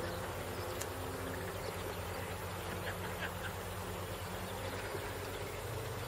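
Frogs calling from a flooded rice paddy as a steady buzzing chorus, over a low steady hum.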